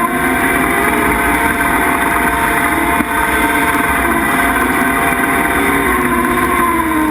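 Skid steer running a hydraulic brush mower attachment through weeds: a loud, steady engine and mower drone whose lower pitch wavers up and down as the load changes, with a constant high whine over it.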